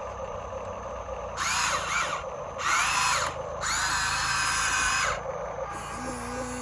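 A small electric motor whines in three bursts, each rising in pitch and then falling as it spins up and slows, like an RC construction toy's motor being driven in short runs.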